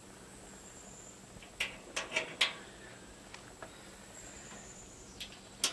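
A few light metal clicks and taps from a cotter pin and hinge being handled on a sheet-steel charcoal smoker's hood, with a stronger click near the end, over a faint steady high-pitched hum.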